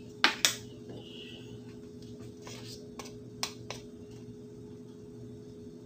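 A plastic cornstarch container and a metal spoon being handled. There are two sharp clicks near the start as the lid comes off, then a few light taps and scrapes of the spoon in the powder about halfway through, over a faint steady hum.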